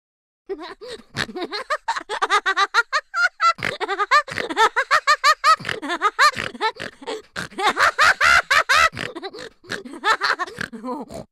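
Cartoon character voice sound effects: a rapid, unbroken string of short, high-pitched vocal bursts that rise and fall in pitch, laughter-like, starting about half a second in and stopping just before the end.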